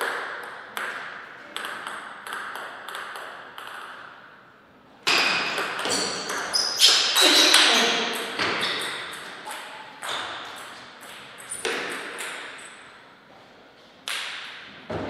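Table tennis ball clicking off bats and the table. A few light bounces come in the first seconds, then a fast run of hits and table bounces from about five seconds in, then scattered single clicks.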